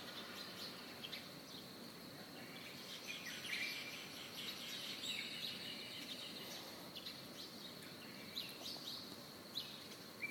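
Many birds chirping and calling over one another, short whistles and chirps, faint, over a soft steady hiss and a thin steady high tone.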